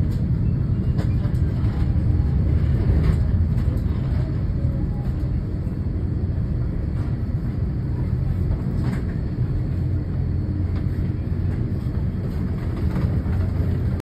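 Steady low rumble of an airliner being towed across the apron by a pushback tug, with a few faint clicks.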